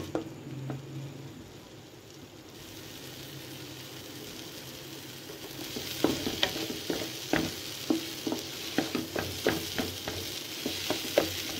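Maghaz (brain) masala sizzling as it fries in a pan, with a steady hiss that grows louder a couple of seconds in. From about halfway through, a wooden spatula scrapes and stirs it across the pan in quick repeated strokes, cooking off the rawness.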